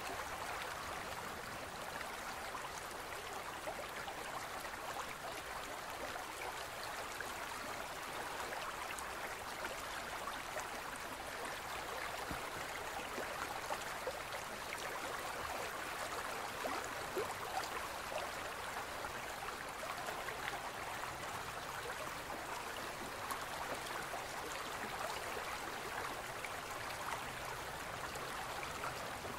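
A gentle stream running steadily, an even rush of water with many small splashes and trickles throughout.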